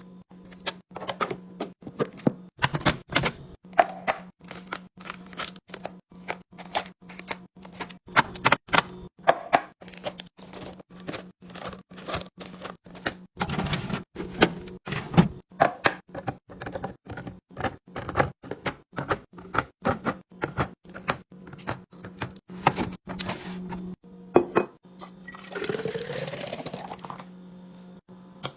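Items being handled and set into a refrigerator: a run of clicks, clinks and knocks of containers and packaging over a steady low hum. Near the end, a rushing sound rising in pitch for about two seconds.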